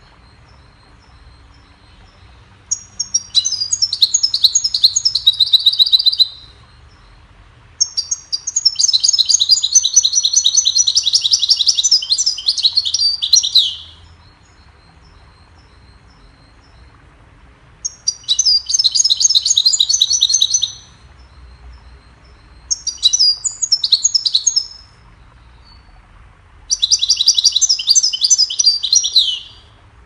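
European goldfinch singing: five phrases of rapid, twittering song, each from about two to six seconds long, separated by short pauses.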